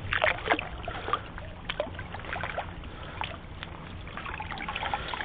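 Water lapping and trickling against stones at the water's edge, with scattered small drips and ticks over a low steady rumble.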